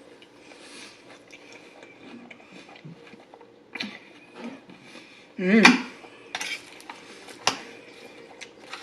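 Chewing a mouthful of salad close to the microphone, with clicks of a fork against the bowl. It is quiet at first and grows busier from about four seconds in, the loudest sound coming a little past halfway.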